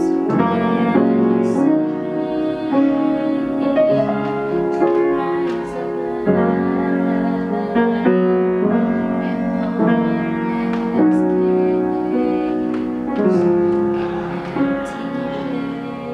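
Music of slow, sustained piano or keyboard chords, changing every second or two.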